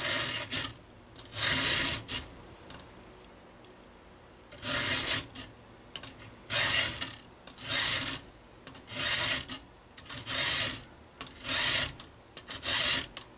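Round chainsaw file in a filing guide rasping across a cutter tooth: about ten strokes, roughly one a second, after a pause of about two seconds near the start. The tooth is badly worn, so it takes many strokes to cut it back to a proper C-shaped cutting edge.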